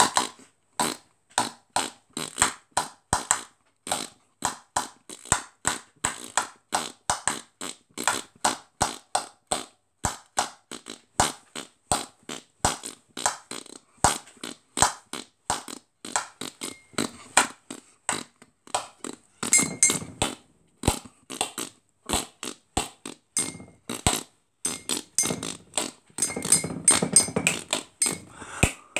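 Solo beatboxing: a steady beat of mouth-made kick and snare hits at about two to three a second. Buzzy held sounds come in around twenty seconds in and again near the end.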